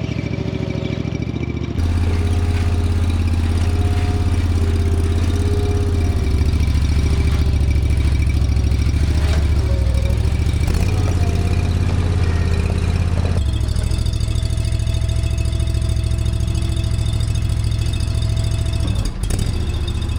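A machine's engine running steadily, with a low hum and thin steady whining tones above it, changing character abruptly a few times.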